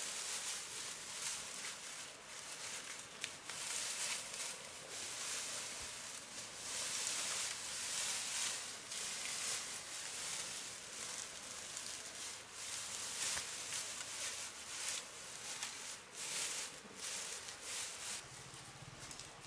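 Dry vegetation rustling, with irregular crackles throughout.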